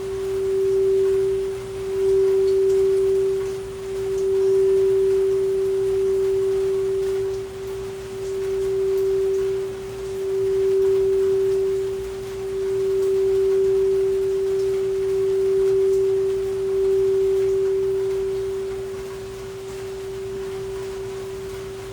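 Singing bowl sounding one steady, pure tone that swells and ebbs about every two seconds, tapering off over the last few seconds, with faint rain behind it.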